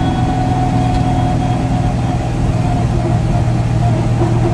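Small-block Ford 302 V8 of a Fox-body Mustang bracket car running steadily at part throttle, around 2,500 rpm, heard from inside the cabin.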